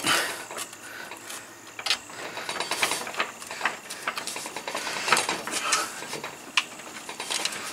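Scattered light clicks and scrapes as hands handle a metal garage door T-handle plate and its screws against the door panel, lining it up to be fastened.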